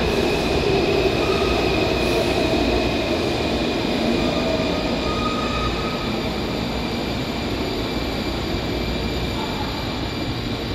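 Washington Metro subway train running along the platform in an underground station: a steady rumble of wheels on rail with a faint high whine, slowly fading as the train moves away.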